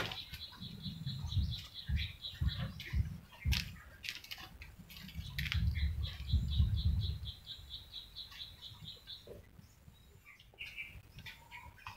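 A bird chirping rapidly and evenly, about five short high notes a second, stopping about nine seconds in. Under it are irregular low rumbles, loudest around six to seven seconds in.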